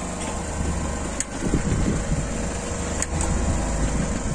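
Fishing boat's engine idling steadily, with a couple of sharp clicks, one about a second in and another near three seconds.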